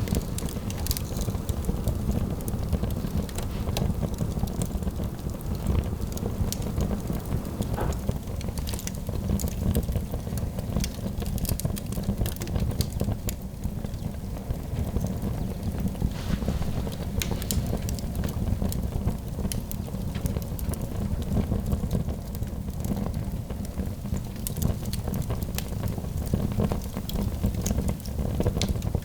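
Wood fire in a fireplace crackling, with scattered sharp pops over a steady low rumble.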